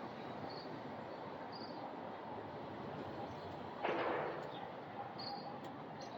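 Steady outdoor background hiss with a few faint, short high chirps, and a brief whoosh about four seconds in.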